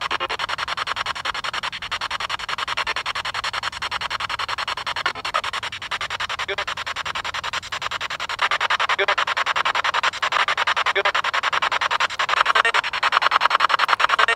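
Handheld spirit box sweeping through radio stations: a fast, choppy run of static that pulses several times a second, with brief fragments of radio voice. The fragments are taken as spirit answers, heard as "two" and then "three".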